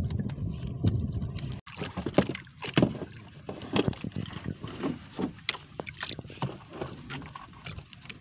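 Water lapping and splashing against a small wooden outrigger boat's hull, with irregular small knocks and taps as a fishing handline is hauled in by hand. Wind rumble on the microphone cuts off about a second and a half in.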